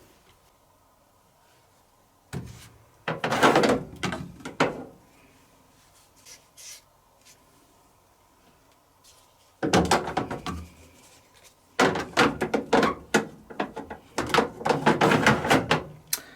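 Clusters of knocks, clunks and rattling as the door of a Zanussi TD162 compact tumble dryer (built by White Knight) is handled: one burst a couple of seconds in, then longer runs of clattering after a quiet spell near the middle.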